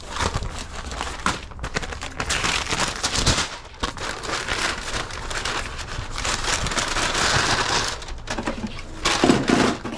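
Brown paper bags rustling and crinkling as they are opened out and handled, a steady crackly rustle with brief pauses.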